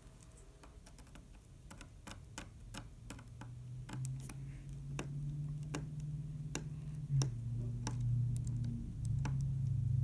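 Small screwdriver clicking and scraping against a Phillips screw in a smartphone's frame, a scatter of light clicks as it tries to turn a screw that is stuck. A low steady hum grows underneath, shifting pitch a couple of times.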